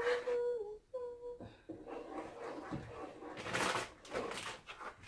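A voice humming a couple of held notes, then a wooden spoon stirring thick cheese sauce in a non-stick pot, with two louder scraping strokes around three and a half and four and a quarter seconds in.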